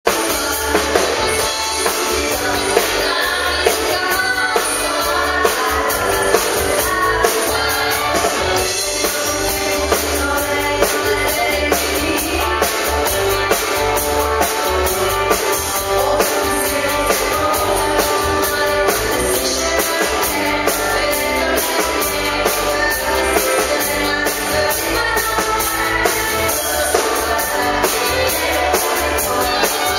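A woman singing into a microphone over amplified music with a steady drum beat.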